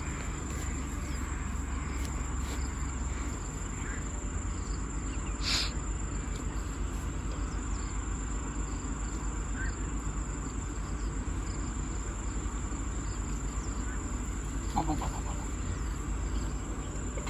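Insects chirring in one steady, high continuous tone, with a brief scrape about five and a half seconds in.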